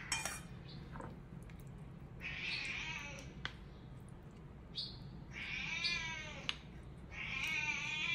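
A cat meowing three times, each meow about a second long and rising then falling in pitch, while food is stirred for it; a few light clicks of a plastic spoon against a ceramic bowl come between the meows.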